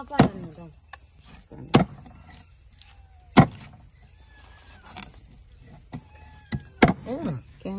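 A long curved machete blade chopping a fish into pieces on a wooden board: several sharp chops a second or two apart, the loudest about three and a half seconds in. Insects chirr steadily underneath.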